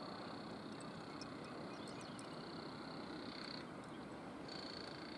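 Faint outdoor ambience: a steady high-pitched animal chorus that breaks off for about a second about three and a half seconds in, over a low even rumble, with a few short chirps.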